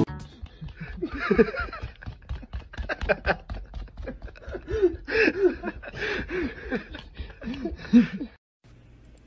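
A run of short vocal sounds, each rising and falling in pitch, with soft clicks and rustling between them. They stop abruptly near the end.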